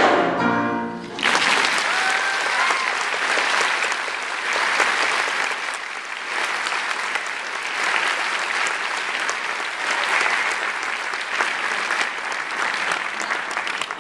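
A choir singing with piano holds its last chord, which cuts off about a second in; audience applause follows and fills the rest.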